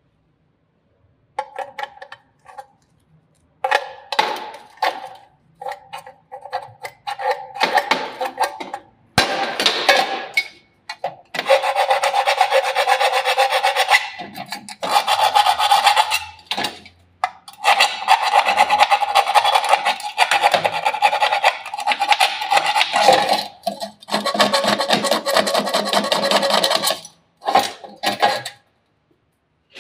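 Steel hand file scraping the burnt edges of a hole cut through steel plate, cleaning up the rough rim. It starts as short separate strokes, then about nine seconds in turns into long runs of quick back-and-forth filing.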